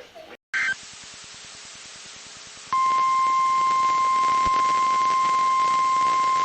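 Radio static hiss after a short blip, then about three seconds in the NOAA Weather Radio 1050 Hz warning alarm tone switches on: one loud, steady, unbroken tone. It signals the weekly test of the weather radio warning alarm.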